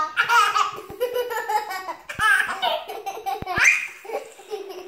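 A baby and a young girl laughing in short bursts, with a rising squeal a little before the end and a few short knocks in between.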